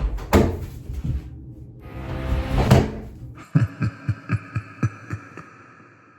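Horror-style music and sound effects: a few hits, then a rising swell that peaks about three seconds in, followed by a held eerie chord over a quick run of evenly spaced thuds that fades away.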